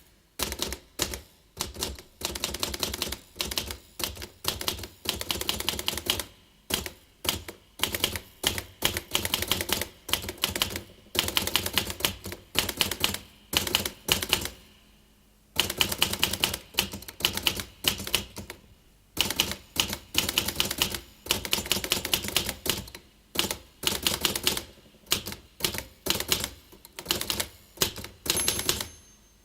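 Typewriter keys being struck in quick runs: a rapid clatter of sharp key clicks, several a second, broken by short pauses between bursts.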